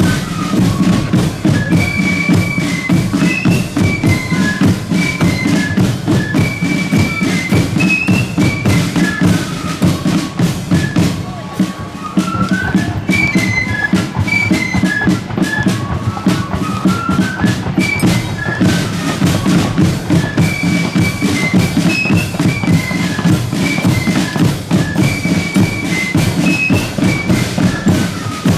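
Marching flute band playing a tune: a high flute melody that steps up and down in repeating phrases over a dense, steady beat of side drums and bass drum.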